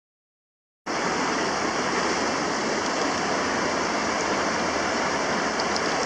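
Silent for about the first second, then shallow river water rushing steadily and loudly, very close by.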